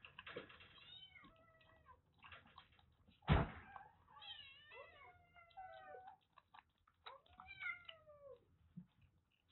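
A kitten mewing repeatedly while suckling milk from a nursing bottle: short calls that rise and fall in pitch, with soft clicks between them. A single loud thump about three seconds in.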